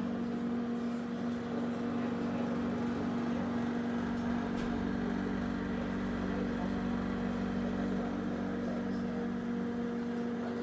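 LG MSER1590S microwave oven running with a steady hum, a noise the owner finds too loud.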